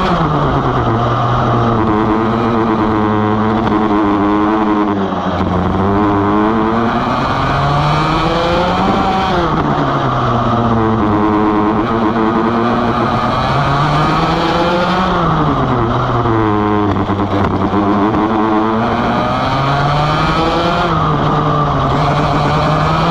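A Vortex ROK GP 125cc two-stroke kart engine at racing speed, heard from on board the kart. Its pitch climbs to a high rev and falls back several times as the kart accelerates out of corners and lifts off into them.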